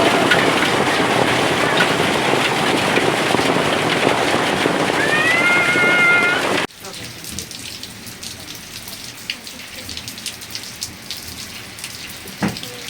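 Heavy rain pouring down, a loud dense hiss. About two-thirds of the way through it cuts off suddenly to lighter rain, with drops ticking on a hard surface and one sharp knock near the end.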